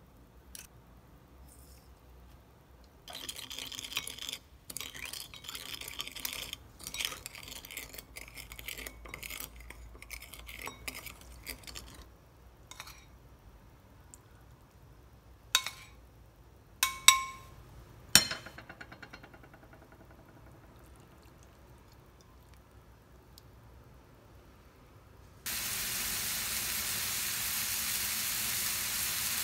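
Wooden spoon stirring sugar into a soy sauce and vinegar dressing in a glass bowl, with rapid scraping and clinking against the glass, followed by a few sharp clinks. Near the end, a steady loud sizzle starts suddenly: sliced pork belly frying in a hot pan.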